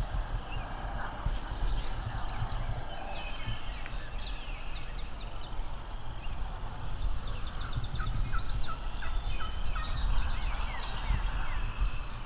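Wild turkey gobblers gobbling several times in rattling bursts, over a low steady rumble.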